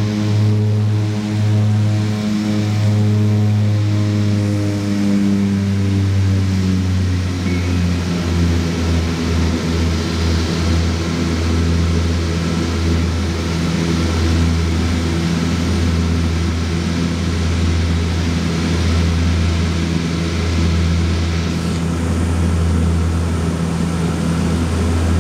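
De Havilland Canada Twin Otter's Pratt & Whitney PT6A turboprop engines and propellers droning, heard from inside the cabin. The propeller tone drops in pitch several seconds in, as power is eased back during the climb after takeoff, then holds steady. A high hiss falls away near the end.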